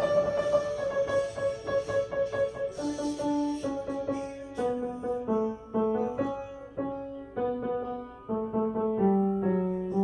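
Piano playing a melody of separate notes over lower notes, changing about twice a second after a held note at the start.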